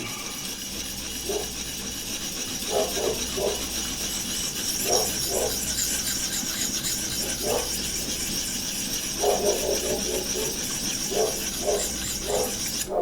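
A sharpening stone, 1200 grit on a Vipersharp guided system, being stroked along a knife's edge, giving a steady abrasive rasp broken by short irregular scrapes.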